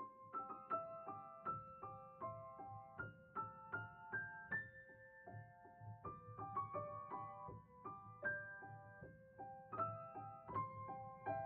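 Solo piano music: a melody of quick, distinct notes over lower accompanying notes, starting suddenly out of silence.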